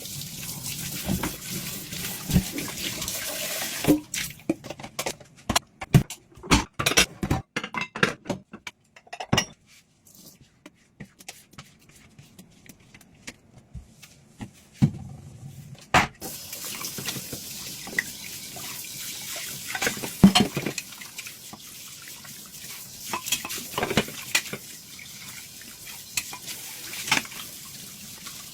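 Dishes being washed in a sink under a running tap, with ceramic and cutlery clinking and knocking against each other. The water stops about four seconds in for a stretch of close clattering, goes quiet, then runs again about sixteen seconds in, with occasional knocks over it.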